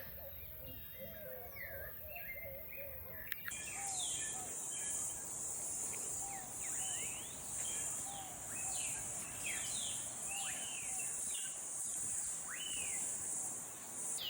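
Rural birdsong: many small birds chirping and calling, one of them repeating a short lower call about once a second. A steady high-pitched insect buzz starts abruptly about three seconds in and runs under the birds.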